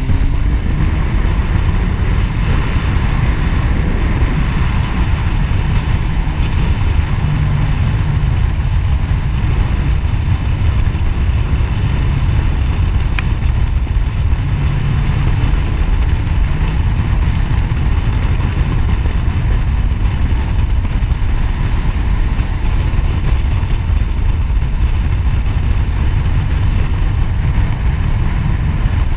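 Sport motorcycle riding along at a steady road speed, heavy wind rumble on the bike-mounted camera's microphone over the engine's steady drone.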